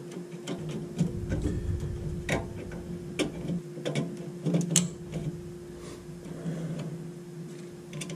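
Irregular light clicks and taps of wires and plug connectors being handled at a gas furnace's control board, over a steady hum.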